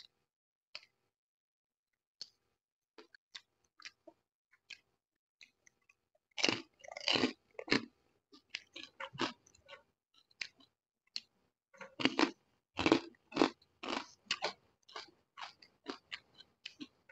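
A person chewing crisp food close to the microphone: a few faint mouth clicks at first, then from about six seconds in, loud, rapid crunching in two long runs.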